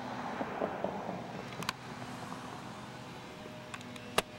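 Outdoor ambience recorded on a Panasonic Hi8 camcorder: a steady low hum under a haze of background noise, which swells over the first two seconds. A few sharp clicks follow, a pair about halfway through and the loudest near the end.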